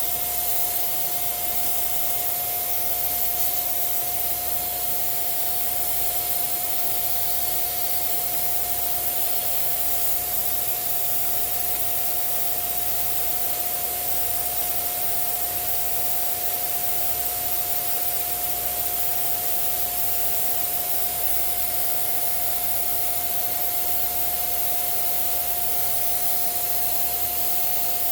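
Steady rush of air from a blower, with a constant high whine, blowing dust out of an old sewing machine's mechanism.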